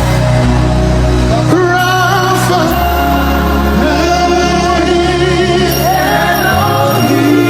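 Live gospel worship music: a held, wavering sung melody over sustained bass notes that change every second or two.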